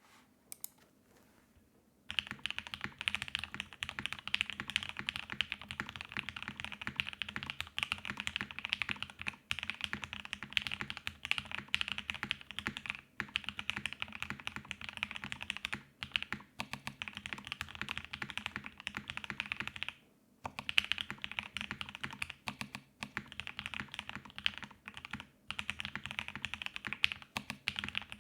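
Fast, continuous typing on a CAKE60 custom mechanical keyboard with lubed C3 Banana Splits linear switches, an FR4 half plate, o-ring mount and CRP R4 keycaps. After a couple of lone key presses, steady typing starts about two seconds in and runs on with only brief pauses.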